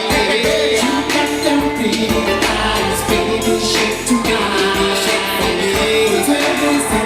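Live band music with a singer's voice over it, and percussion hits running through.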